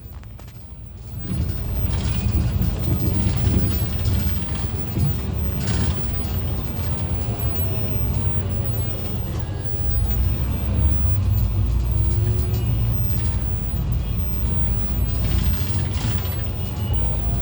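City bus in motion, heard on board: steady low engine and road rumble that swells up about a second in and holds.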